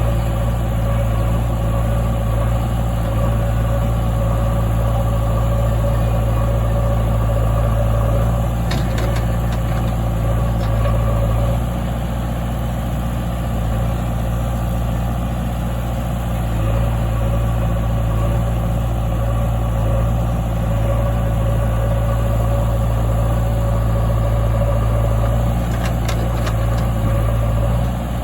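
Heavy diesel engine running steadily at a low, even idle. A couple of faint clicks or knocks come through, about nine seconds in and again near the end.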